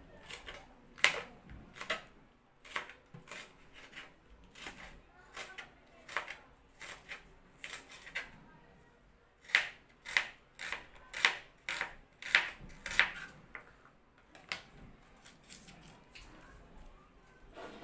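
Food preparation sounds: a run of irregular, sharp clicks and cutting sounds, coming thickest from about nine to thirteen seconds in.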